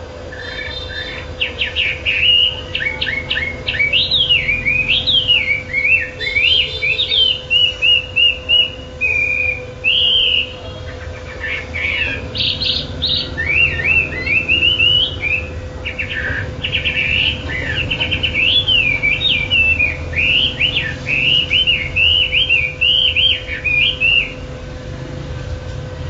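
A caged wambi songbird singing a long, fast, varied run of whistled and chattering phrases without a break, stopping shortly before the end. A faint steady hum runs beneath it.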